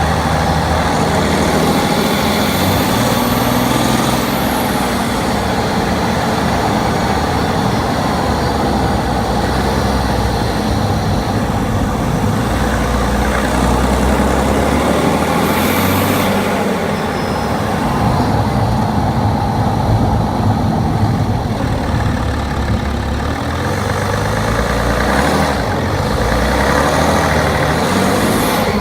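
BMW 530d's 3.0-litre straight-six turbo diesel running, recorded from inside the engine bay with the hood shut. Its note shifts a few times, with brief higher whooshing sweeps now and then.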